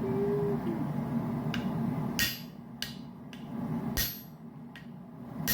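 Hammer blows on a punch being driven into a hot titanium button: three heavy, sharp strikes about a second and a half apart in the second half, with a few lighter taps between. A steady low rushing noise fills the first two seconds and drops away as the striking begins.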